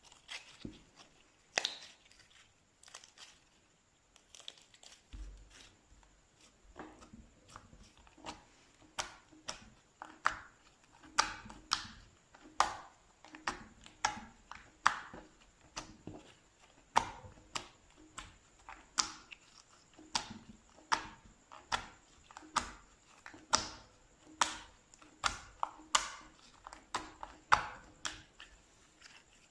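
Slime being pressed by hand, giving a run of sharp crackling pops. A few come scattered at first, then a steady run of a little more than one a second.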